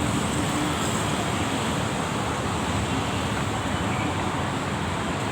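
Steady vehicle noise at a bus terminal: an even rumble and hiss that stays level throughout, with no horn sounding.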